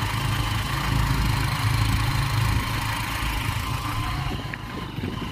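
Motorcycle engine running steadily under way up a hill road, a low drone with rushing noise over it; it eases off slightly near the end.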